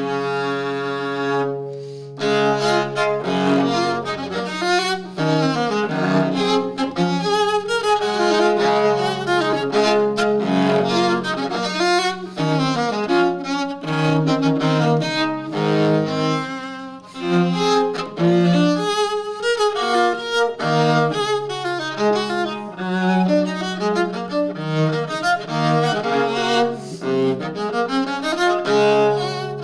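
Violoncello da spalla being bowed, freshly given a full tonal adjustment with a new bridge, soundpost and tailgut that brightened its sound. It opens on a chord held for about two seconds, then runs into a quick, flowing passage with many double stops in its deep bass register.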